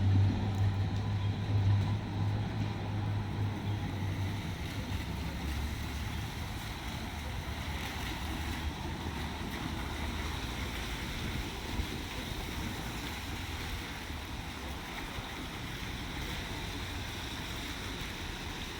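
A diesel train's engine rumble fading away over the first few seconds as it moves off, leaving a steady rushing noise that slowly grows quieter.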